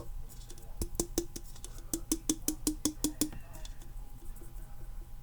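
Christmas ornament holding alcohol ink and glitter being shaken by hand: a quick, even run of light clicks and taps, several a second.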